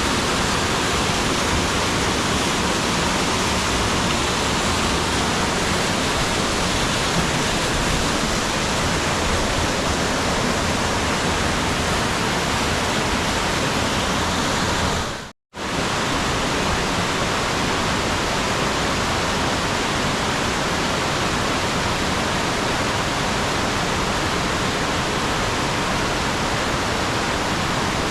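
Mountain stream rushing over the cascades of a gorge, a steady even wash of water noise. The sound cuts out completely for a split second about halfway through, then resumes.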